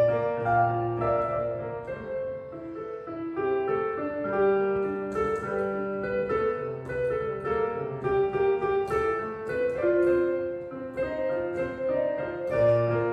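Street piano being played: a slow melody in the middle range over repeated low bass notes.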